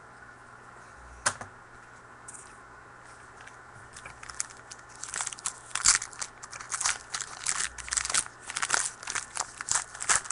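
A trading-card pack wrapper being torn open and crinkled by hand: a single click about a second in, then from about halfway on a fast, irregular run of sharp crackles and rips.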